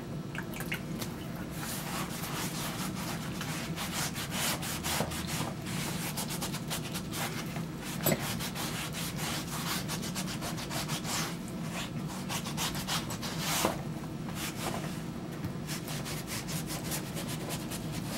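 Hands rubbing water into a piece of leather: a continuous, irregular scrubbing and scratching. The wetting loosens the leather's fibres so it scores and cuts more easily.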